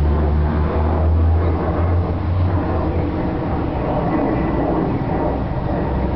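Boeing 737-800's CFM56 jet engines at climb power just after takeoff, a steady loud rumble from the aircraft passing overhead. The deepest part of the rumble eases off about two and a half seconds in.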